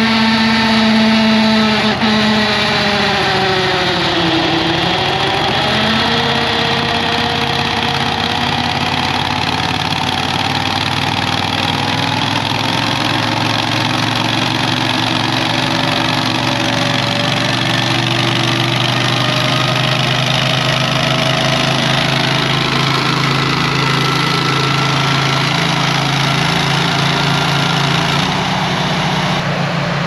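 Small engine of a ride-on snowblower tractor idling just after a cold start, warming up with the auger not engaged. Its speed dips and recovers about four seconds in, then it runs steady, creeping slowly higher.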